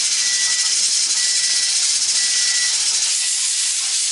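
Pressure canner at 15 pounds with its weighted regulator jiggling and venting steam in a steady hiss, the sign that it is holding pressure. A timer beeps about once a second, four times.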